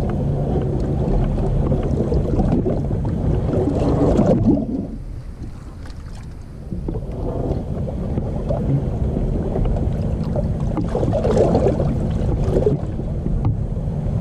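Wind rumbling on the microphone and water lapping at a bass boat's hull, with a faint low steady hum underneath. The noise swells about four seconds in and again near eleven seconds, and dips briefly in between.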